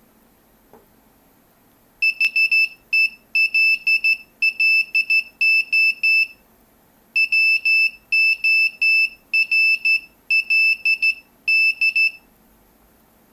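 Morse code sidetone from a telegraph key: a steady high-pitched electronic beep keyed on and off in short dots and longer dashes for about ten seconds. It starts about two seconds in and has a pause of about a second in the middle, like a gap between words.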